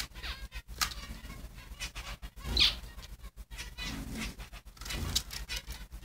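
Zebra finch moving about in a cage: light fluttering of wings and scattered scratchy clicks, with one louder rustle about two and a half seconds in.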